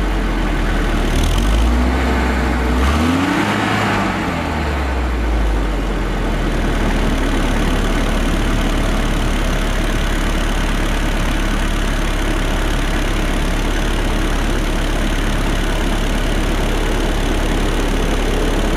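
Exhaust of a Volvo 740's B230K 2.3-litre carburetted four-cylinder, run without a catalytic converter and heard at the tailpipe. The engine is revved briefly a couple of times in the first few seconds, then falls back to a steady idle.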